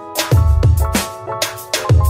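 Background music with a steady beat: deep kick-drum thumps and sharp drum hits over held chords.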